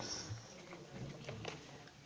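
Faint, soft clicks and squelches of slime made from glue and shaving foam being stirred in a bowl.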